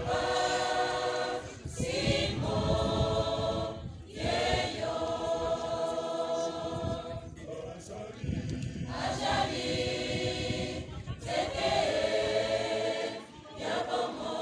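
Large school choir singing together in held chords, phrase by phrase, with short breaks between phrases every few seconds.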